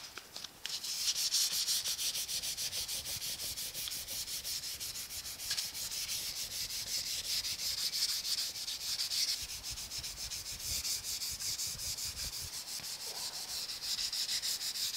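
400-grit sandpaper rubbed by hand over the primer on a steel truck grill, a scratchy rasp in quick, even back-and-forth strokes starting just under a second in. It is the fine-grit pass that takes out the 220-grit sanding scratches before the color coat.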